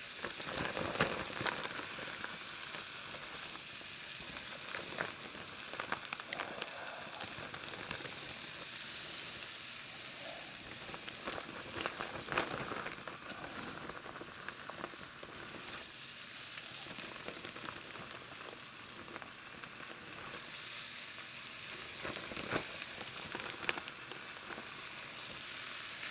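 Flour-dusted beef stew meat browning in a non-stick ceramic fry pan: a steady sizzling hiss with scattered pops and crackles.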